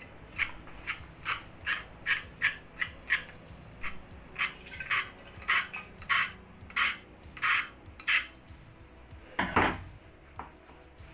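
Short scraping strokes of metal on steel plate, about two a second, followed by one longer, louder scrape near the end.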